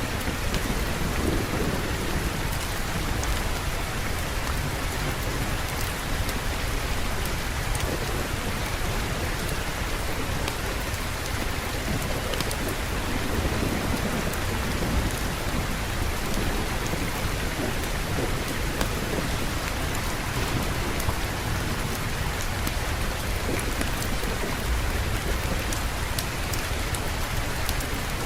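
Steady rain falling, with low rolling rumbles of thunder underneath, swelling about a second in and again around the middle.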